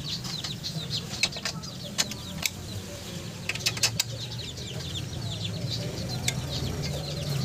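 Sharp metal clinks of a hand tool against the front strut's lower mounting bolts: a few scattered taps, with a quick cluster about halfway through. Birds chirp busily throughout.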